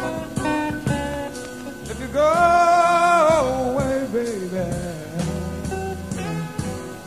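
Late-1960s rock band recording with singing over guitar and drums on a steady beat; about two seconds in a long wavering note is held for over a second, then steps down in pitch.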